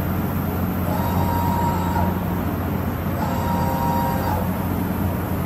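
DMG Mori DMU 125 monoBLOCK 5-axis machining center moving its swivel rotary table, with the axis drives giving two whines of about a second each, about a second and three seconds in, over a steady machine hum.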